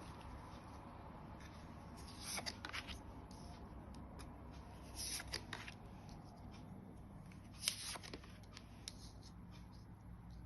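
Tarot cards being handled and laid out: faint soft rustles and card clicks in short clusters, about two seconds in, around five seconds in and near eight seconds in.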